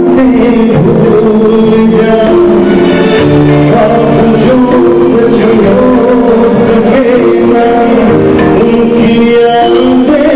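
A song with a singer over instrumental accompaniment, with long held notes.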